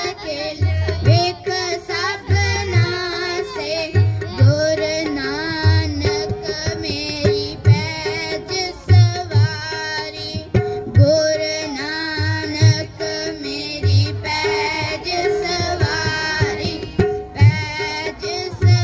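Shabad kirtan: reed harmonium melody with tabla beats, and children's voices singing a line that glides and wavers in pitch.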